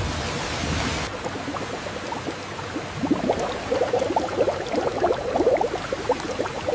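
Liquid bubbling at a boil, with many small pops that grow denser from about three seconds in. A steady rushing noise cuts off about a second in.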